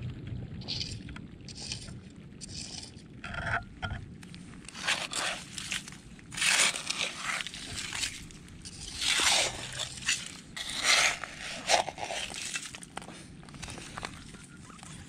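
Metal hand trowel digging for clams in gravelly beach sediment packed with mussel and barnacle shells: a series of uneven scraping, crunching strokes, most of them from about five seconds in.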